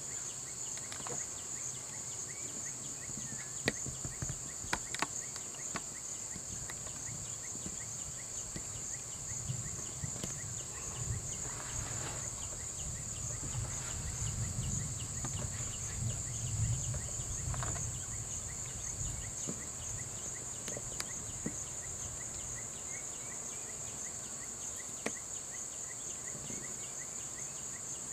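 A high-pitched, steady drone from a chorus of insects, with a low rumble that swells for several seconds in the middle.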